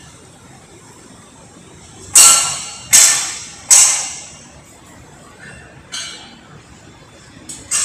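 Metal strikes on the steel of a tower crane being dismantled: three loud clanks about three-quarters of a second apart, each ringing briefly, then two lighter ones near the end.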